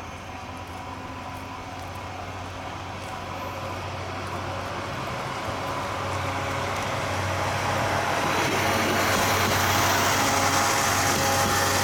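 KiHa 20 diesel railcar with a DMH17-series engine pulling away and approaching along the track. Its engine and wheels grow steadily louder as it draws near, loudest near the end as it passes close by.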